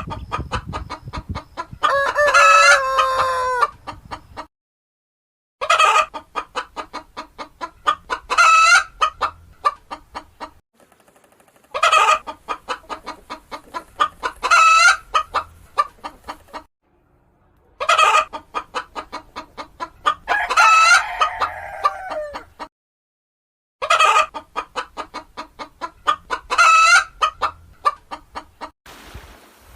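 Chicken clucking in quick runs broken by a longer drawn-out call, like a hen's cackle. The same bout repeats about five times, with short silences between.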